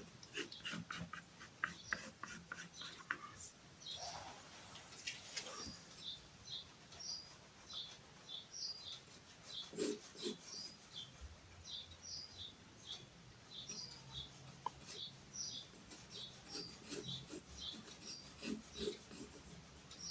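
Pen or pencil drawing on paper: quick scratchy strokes at first, then a run of short, squeaky strokes repeated about twice a second.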